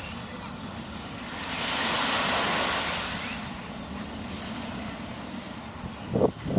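Ocean surf: a wave swells and washes in about two seconds in, dying away by three seconds, over steady sea noise. A couple of short, louder sounds come near the end.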